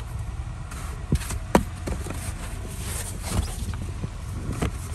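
Snow brush sweeping snow off a car's body, with a few brief knocks and scrapes over a steady low rumble.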